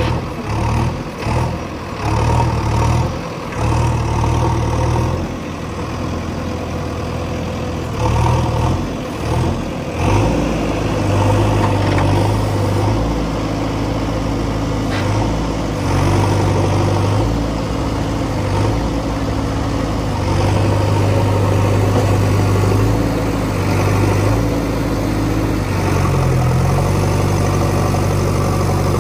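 Heavy diesel engine under varying load, revving up and easing off in short surges through the first ten seconds, then running more steadily with a few rises.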